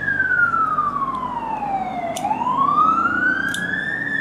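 Police car siren wailing: its pitch falls slowly for about two seconds, then climbs back up for about two seconds.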